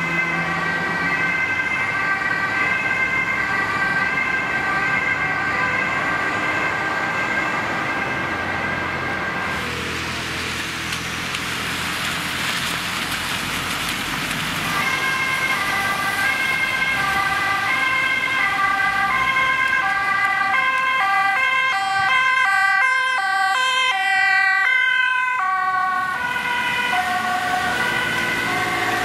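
Two-tone sirens of Dutch emergency vehicles: first a fire engine's siren alternating between two pitches. Then a few seconds of traffic noise on a wet road, then an ambulance's two-tone siren, which switches pitch faster for a few seconds in the second half.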